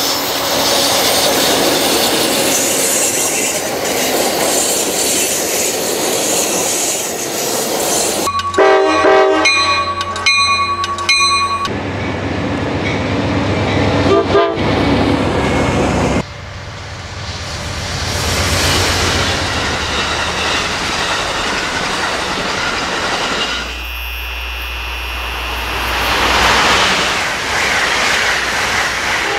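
Passenger trains passing at speed, wheels clattering and rumbling on the rails. About a third of the way in, a locomotive air horn sounds a series of short blasts, and it starts sounding again near the end.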